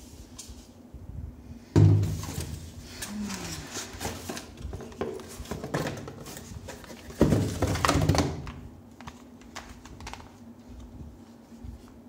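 Handling noise while unboxing a stainless steel electric kettle: cardboard box rustling and scraping, with a loud thunk about two seconds in and another burst of knocks and scrapes around seven seconds as the power base and cord are pulled from the box.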